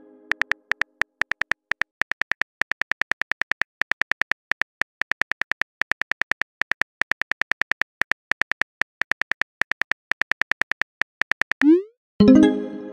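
Simulated phone-keyboard typing clicks from a texting-story app: rapid, even taps at about seven a second, each with a short bright tick. Near the end a rising whoosh, then a louder ringing message-alert tone that dies away.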